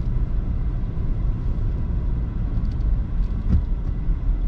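Steady low engine and road rumble heard inside a truck's cab as it drives along.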